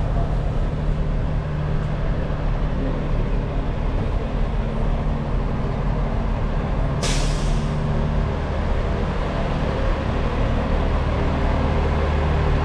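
Diesel delivery trucks running with a steady low hum, and a short, sharp air-brake hiss about seven seconds in. The hum grows a little louder near the end as a box truck comes close.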